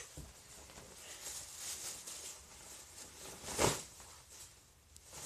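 A large plastic bag rustling and crinkling as it is swung and pulled down over a child's body, with one louder, sharper noise about three and a half seconds in.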